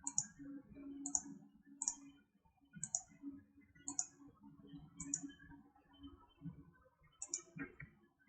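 Computer mouse clicks, short sharp double clicks about once a second, over a faint steady low hum.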